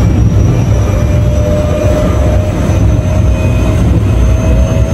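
Passenger train running, heard from inside the carriage: a steady low rumble with a faint steady whine above it.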